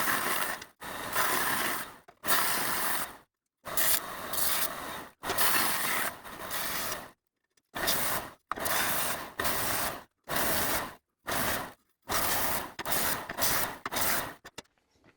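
Power tool working on the cart's material in a series of short, harsh bursts, each a quarter-second to a second long, that start and stop abruptly with silent gaps between them.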